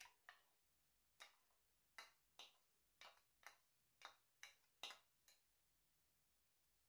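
Metal spoon tapping against a bowl as chopped onion is spooned and shaken out: a dozen or so sharp light taps, about two a second, stopping about five seconds in.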